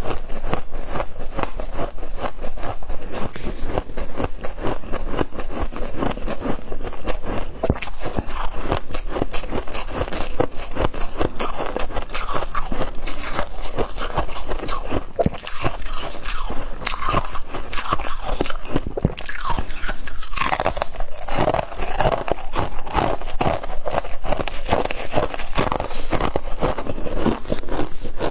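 Close-miked crunching and chewing of frost ice eaten by hand: dense, rapid crunches, bite after bite.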